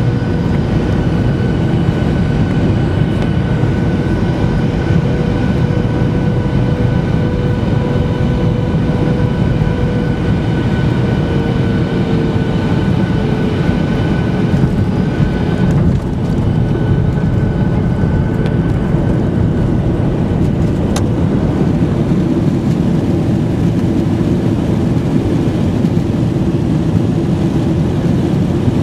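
Jet airliner cabin noise heard by the window over the wing: steady rumble of the jet engine and rushing air as the plane lands and rolls out on the runway. A few steady engine tones run through it, and one slides lower about halfway through.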